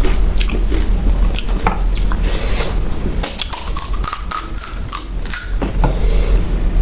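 Pani puri being bitten and chewed: the crisp, hollow puri shells crunch and crackle in many quick, sharp bursts, over a steady low hum.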